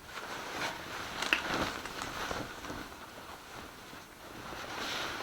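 Rustling and crinkling of plastic packaging and clothing being handled, irregular, with a few light clicks.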